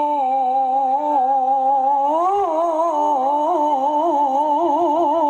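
Melodic Qur'an recitation: one voice holds a long drawn-out note, level at first, then climbs about two seconds in and winds through quick wavering ornaments.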